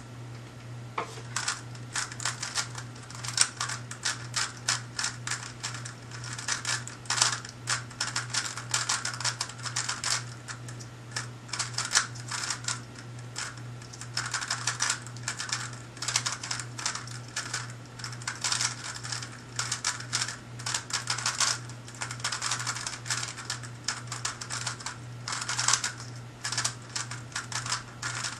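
Gan magnetic megaminx being turned fast in a speedsolve: a dense, irregular stream of plastic clicks and clacks from the turning faces, starting about a second in, over a steady low hum.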